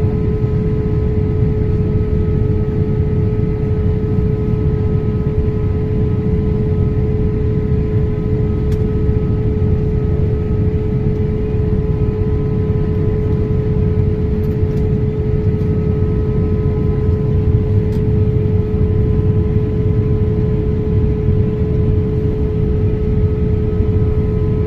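Steady cabin noise of a Boeing 787 airliner in flight: a constant low rumble of engines and airflow with a steady hum over it.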